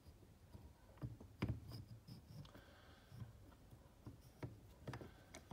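Faint, scattered clicks and light knocks of metal parts being handled as an oiled piston pin is pushed by hand through a piston and the small end of a connecting rod, a sign that the pin slides in without heating. The clearest knock comes about a second and a half in.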